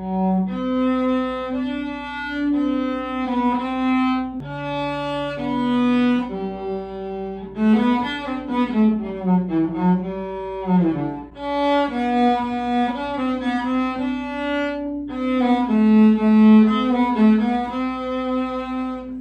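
Cello bowed through a slow melody of held notes, some of them bending and sliding in pitch about halfway through.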